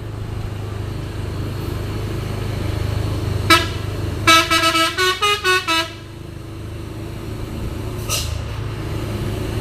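A telolet multi-note horn gives a short note about three and a half seconds in, then a quick run of notes that step up and down, and one more brief note near the end. Under it runs the steady low rumble of the Hino 500 truck's diesel engine.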